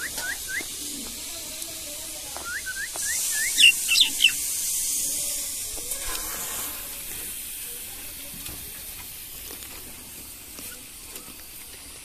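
Common myna giving short, hooked chirps: three right at the start, then a quicker run of five about two and a half seconds in, ending in three or four louder, higher notes around four seconds. A steady hiss sits underneath from about three to six and a half seconds.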